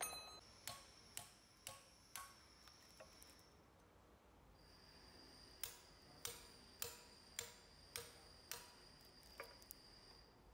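Hand hammer striking a steel chisel to cut the old copper windings out of an electric motor's stator, each blow a sharp metallic clink with a brief ring. The blows come at about two a second in two runs, separated by a pause of about two seconds.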